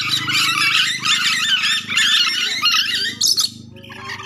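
Ornate lorikeets (nuri dora) chattering in a dense run of shrill, quickly wavering calls over a steady low hum. The calls thin out near the end.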